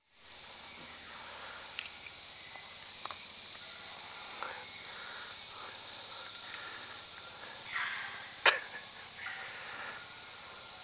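Steady chorus of tropical rainforest insects, an even high hiss, with a few brief soft swishes and one sharp knock about eight and a half seconds in.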